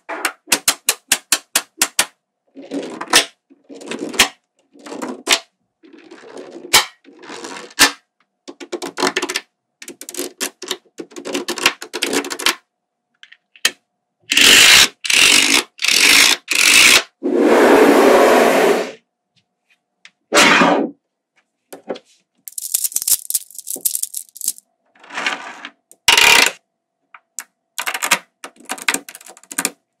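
Small magnetic balls snapping together with sharp clicks, in fast runs and rattling clusters as they are set into place. About halfway through come several louder, noisier bursts, one lasting about a second.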